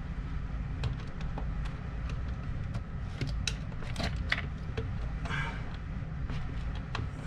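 Scattered small clicks and scrapes of a screwdriver and a small screw being worked into the wooden roof of a cuckoo clock case, with a few sharper clicks around the middle, over a steady low hum.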